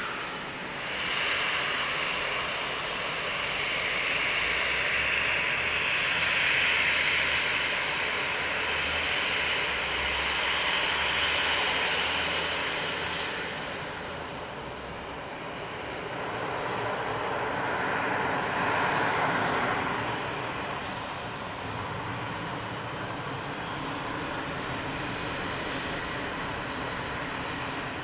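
Jet airliner engines at takeoff power as a twin-engine airliner climbs away, easing off about halfway through. The sound of a second jet airliner on the runway then swells up and holds steady.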